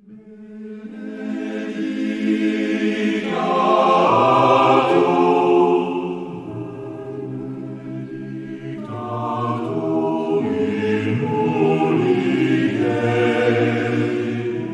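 Choir singing slow, held chords, fading in from silence and swelling to full volume within the first few seconds, the chords changing every few seconds.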